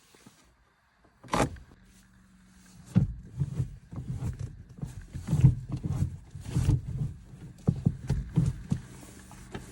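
Mechanical sounds from a 1985 Volkswagen Jetta GLI: a sharp clunk about a second and a half in, then a steady low hum with repeated irregular knocks and clunks.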